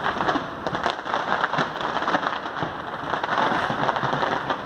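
New Year's fireworks display crackling continuously, a dense run of rapid small pops heard at a distance.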